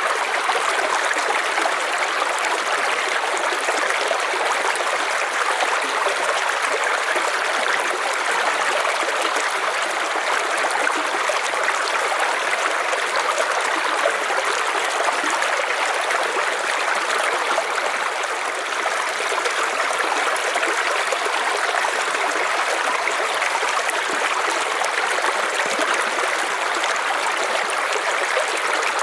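River water rushing and splashing over stones in a steady, unbroken flow.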